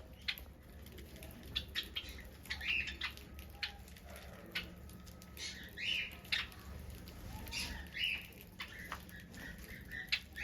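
Finches calling: a scatter of short, sharp chirps at irregular intervals, a few a second, several birds overlapping, over a faint low hum.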